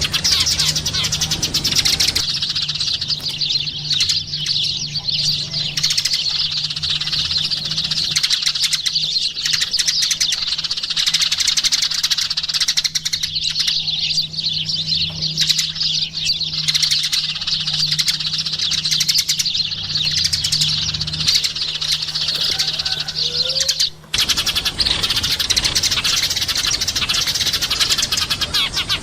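Eurasian tree sparrows chirping continuously, many short overlapping chirps from a group of birds, with a brief break about three-quarters of the way through.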